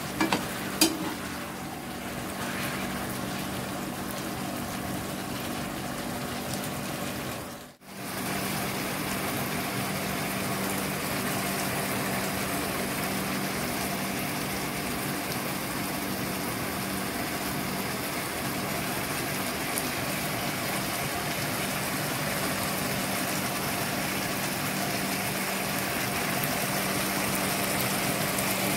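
Chicken adobo in a thick ketchup-based sauce simmering and bubbling in a frying pan, over a steady low hum. A ladle knocks against the pan a few times in the first second, and the sound briefly drops out about eight seconds in.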